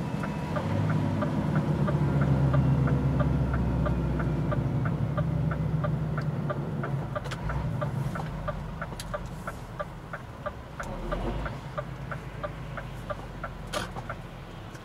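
Steady, even ticking, about three to four ticks a second, over a low engine hum that slowly fades.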